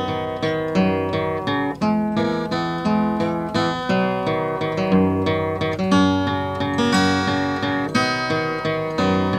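Solo acoustic guitar played fingerstyle: plucked notes ringing and fading at an even pace over a low bass line.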